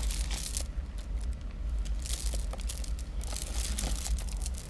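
Rustling and light clicking from beaded jewelry and its bags being handled and sorted, with a steady low rumble underneath.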